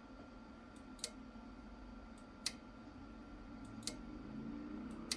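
Four sharp single clicks about a second and a half apart as the radio is keyed up and unkeyed with the Mox button, over a faint steady hum.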